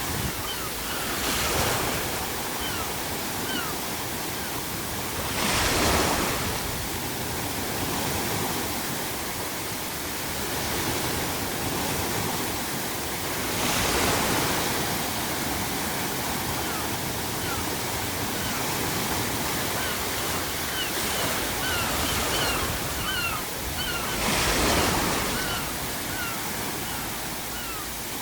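Ocean surf under a steady hiss of added pink noise, with waves breaking four times. Seagulls give short, faint cries in the first couple of seconds and again about three quarters of the way through.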